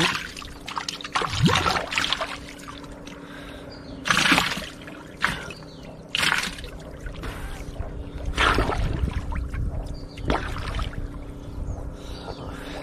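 Water splashing and sloshing as a man dives and surfaces beside a wooden canoe: about six short splashes a second or two apart, with quieter lapping between them.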